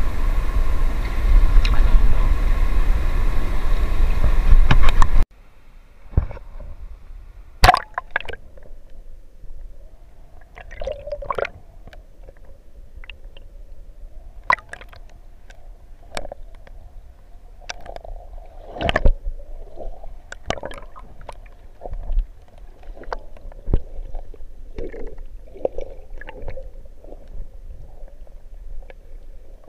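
Wind and sea noise buffet the microphone for about five seconds, then cut off suddenly as the camera goes under shallow seawater. After that, muffled underwater gurgling with scattered clicks and knocks, the loudest about a third and two-thirds of the way through.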